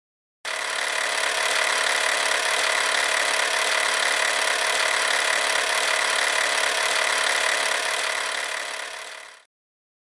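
An old reel-to-reel film camera running: a steady, rapid mechanical clatter that starts about half a second in and fades out near the end.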